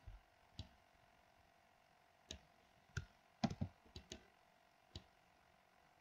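Computer mouse and keyboard clicks: about eight short, sharp clicks at uneven intervals, two close pairs about three and a half and four seconds in, with quiet between them.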